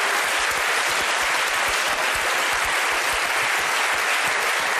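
Studio audience applauding steadily, a dense, even clapping with no break.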